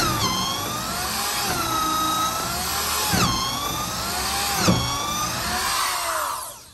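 Corded electric drill running into wood, its motor whine dipping sharply and climbing back about four times as the bit bogs under load, then winding down near the end.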